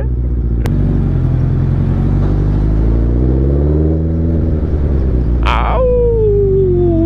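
Suzuki Hayabusa's inline-four engine running at low riding speed, its revs rising and then easing off about midway, with a short click near the start. Near the end a separate clear tone slides steadily down in pitch.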